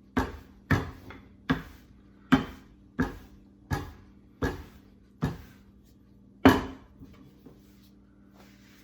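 A rolling pin knocking on a wooden board as pizza dough is rolled out: about nine sharp knocks, nearly one a second, the last and loudest about two-thirds of the way in.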